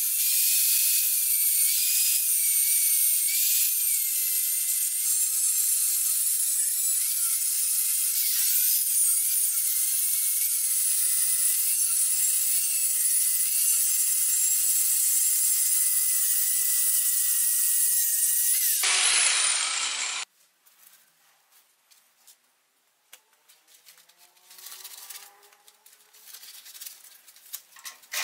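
Angle grinder with an abrasive cut-off disc cutting through a steel flat bar, a loud steady high whine whose pitch wavers slightly as the disc bites. About 19 seconds in it is switched off and winds down with a falling whine, followed by faint clicks and knocks.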